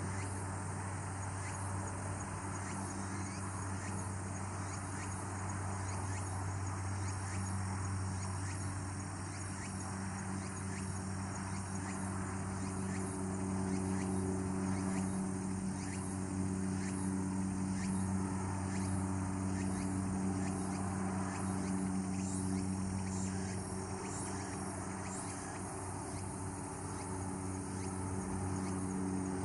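Insects chirping, a high steady trill dotted with quick ticks, over a steady low hum.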